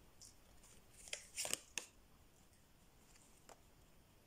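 Tarot cards being handled: a few quick, faint card flicks and slides a little over a second in, and one more soft one near the end.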